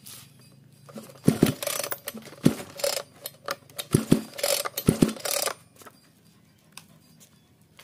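Recoil starter of a Shibaura 34F two-stroke brush-cutter engine pulled about four times, each pull a scraping rasp of the cord with thumps as the engine turns over. The engine does not catch on this cold-start attempt.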